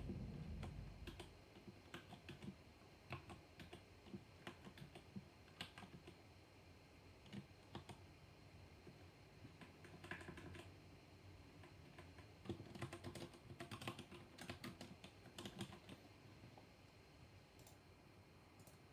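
Typing on a mechanical keyboard with black switches: irregular keystrokes, scattered at first, then quick runs of keys about halfway through and again in the last third, thinning out near the end. A low rumble sits under the first second or so.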